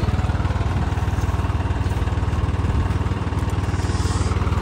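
John Deere 5210 tractor's three-cylinder diesel engine idling with a steady, even low pulse.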